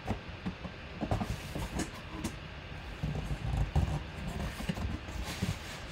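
Cardboard shipping box being handled and its flaps pried open by hand close to the microphone: irregular low bumps and thuds with short scrapes and rustles of cardboard.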